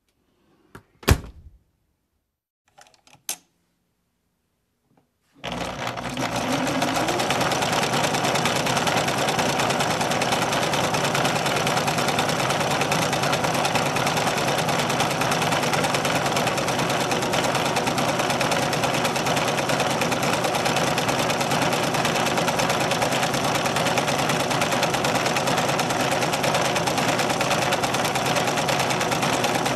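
Two sharp clicks, then a small electric household appliance switches on about five seconds in and runs steadily with a fast mechanical rattle, with a short rising whine as it spins up.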